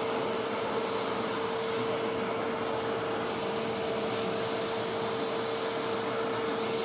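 Eureka AirSpeed NEU100 vacuum cleaner running steadily with good suction: an even rush of air with a constant hum from the motor.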